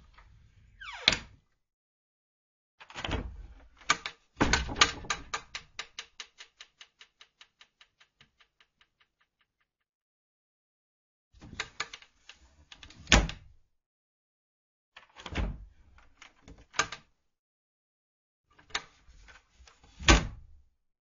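Wooden cupboard door opened and closed over and over: squeaks, some sliding down in pitch, each ending in a sharp wooden knock as the door shuts. After one shut, a rapid run of small knocks fades away over a few seconds.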